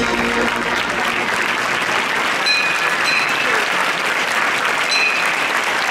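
A crowd applauding steadily, as the last held chord of the music fades out in the first second.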